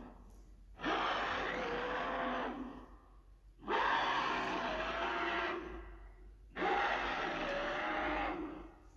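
Monster sound effect: three breathy, rasping growls, each about two seconds long with a short pause between them.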